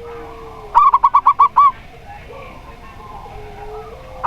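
Recorded calls of a zebra dove (perkutut) and a spotted dove (tekukur). About a second in comes a quick run of six clipped coos, over a fainter, low, drawn-out coo that sounds at the start and again near the end, and another quick run begins right at the end.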